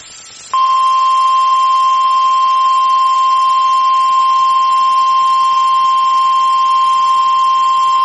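NOAA Weather Radio 1050 Hz warning alarm tone: one loud, steady, unbroken tone starting about half a second in. It is the signal that a tornado warning follows.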